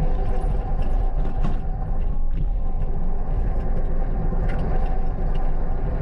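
Loader engine running at raised throttle, working under load as the bucket digs into hard, dry clay and chert, with occasional clicks and knocks.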